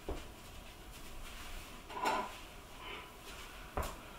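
Dishes being set into a dishwasher rack: three light knocks and clatters, one near the start, one about two seconds in and one near the end.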